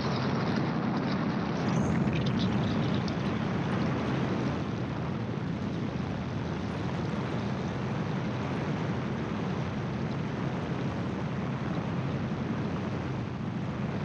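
Gyroplane in flight: the steady drone of its engine and propeller mixed with heavy wind rush on the open-cockpit microphone, a little louder for a couple of seconds near the start.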